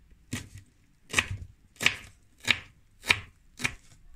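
Kitchen knife finely chopping fresh parsley and dill: six even strokes, a little under two a second.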